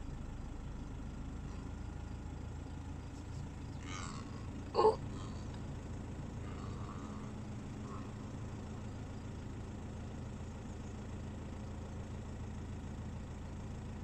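Car engine idling with a steady low rumble, and a short, loud pitched sound about five seconds in.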